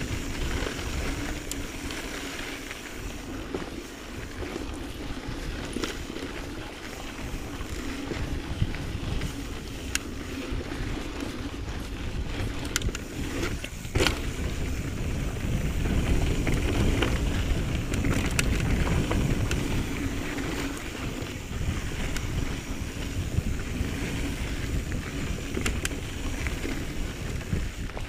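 Mountain bike riding over a dirt and rock trail, with wind rumbling on the camera microphone. The tyres roll over the ground, and the bike rattles with scattered sharp knocks, the loudest about fourteen seconds in.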